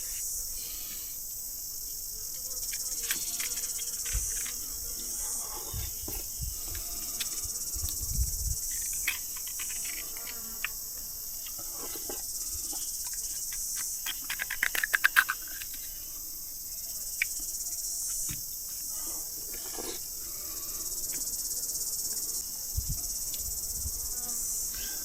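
Steady high-pitched chirring of insects, like crickets or cicadas, with scattered clicks and taps from handling, including a quick run of clicks about halfway through.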